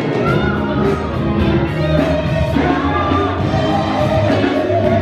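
Gospel choir singing behind a lead vocalist, with a steady beat under the voices.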